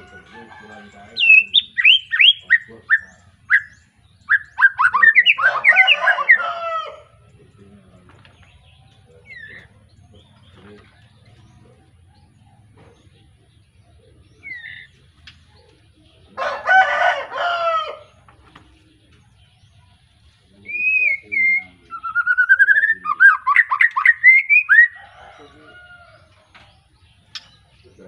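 Caged white-rumped shama, a young bird just out of its spotted juvenile plumage, singing in four loud bursts of rapid whistled notes and dense chattering phrases, with quiet gaps between them.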